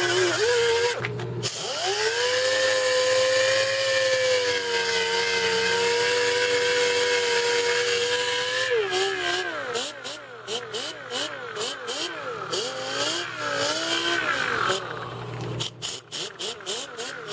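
An electric power tool's motor spins up with a rising whine and runs at a steady pitch. After about nine seconds its pitch wavers rapidly up and down, with scraping clicks, as it is worked against the fiberglass keel patch.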